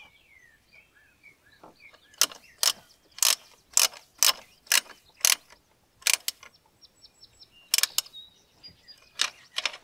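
17 mm ratcheting wrench clicking as it tightens a banjo bolt into a fuel filter housing. A run of sharp clicks about two a second starts about two seconds in, followed by a few scattered pairs of clicks.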